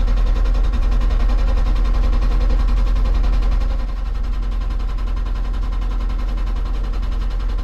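Hydraulic breaker hammer on a Hitachi 160 excavator pounding rock in rapid blows over the diesel engine. It eases a little about four seconds in. The rock is not splitting: the hammer is only grinding it to powder.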